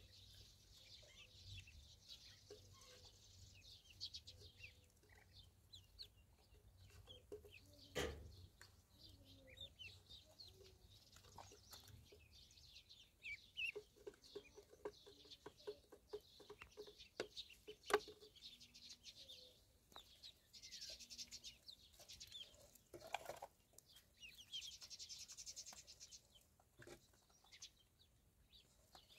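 A flock of ducklings peeping softly and continuously while they feed, with scattered light clicks and taps. A sharper tap comes about eight seconds in and another around eighteen seconds.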